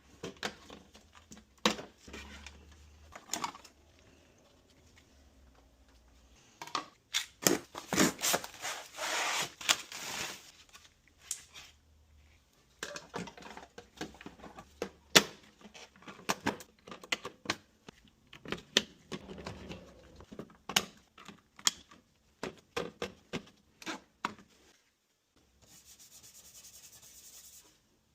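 Hand tools and parts clicking, tapping and scraping against a refrigerator's electronic control board while a burnt relay is replaced, with a short steady hiss near the end.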